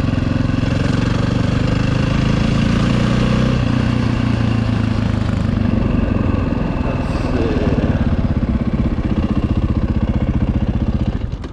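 2011 KTM 530 EXC's single-cylinder four-stroke engine running at a steady idle with an even, fast pulse, stopping abruptly near the end.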